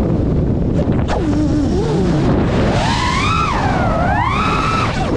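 FPV quadcopter's brushless motors whining, the pitch dropping sharply as the throttle is cut and then swooping up and down as the throttle is worked through the flight, over a steady low rumble.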